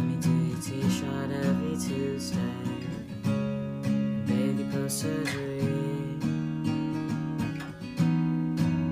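Acoustic guitar strummed, chords changing about once a second.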